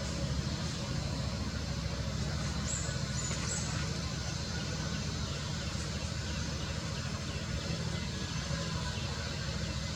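Steady low rumble of vehicle traffic, with a few faint high chirps about three seconds in.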